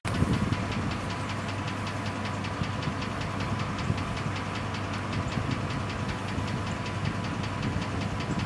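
An engine running steadily at idle, with a low hum and a rapid, even ticking knock.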